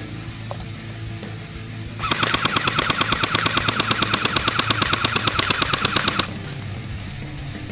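CYMA CM.033 Thompson M1A1 airsoft electric gun with a metal gearbox firing one continuous full-auto burst of about four seconds, starting about two seconds in. It is a rapid, even mechanical rattle with a whine that rises slightly in pitch, and it stops abruptly.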